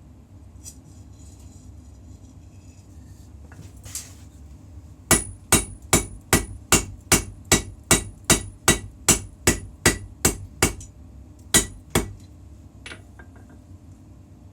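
Hammer blows on steel over an anvil while forging a puukko knife blade: a run of about fifteen ringing strikes at a little over two a second, then two more after a short pause.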